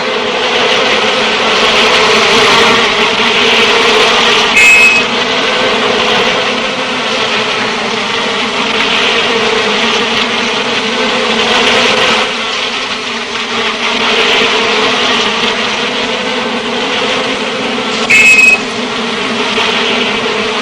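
A swarm of honeybees buzzing loudly and steadily around a wild hive being raided by a honey badger. Two short, sharp, high sounds cut through the buzzing, one about five seconds in and one near the end.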